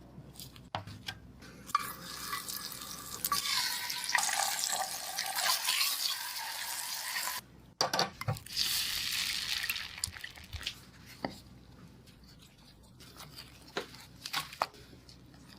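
Liquid running or pouring in two stretches, the first lasting about six seconds and the second about two, cut off abruptly, with scattered clicks and knocks around it.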